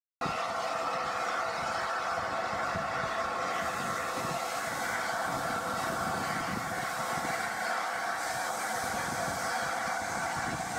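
Steady hiss of steam from LNER A4 Pacific 4498 'Sir Nigel Gresley', with no exhaust beat, mixed with gusting wind on the microphone.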